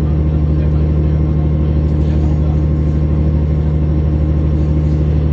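Diesel train engine running steadily, a low, even hum with no horn sounding.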